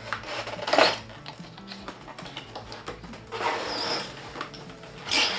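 Cardboard box and plastic packaging rustling and scraping as a mechanical keyboard in its plastic tray is slid out of its box, in a few bursts with the longest in the middle. Quiet background music plays underneath.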